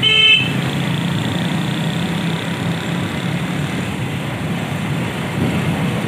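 A vehicle horn toots once, briefly, right at the beginning. Then a motorcycle engine runs steadily under general street-traffic noise while riding along.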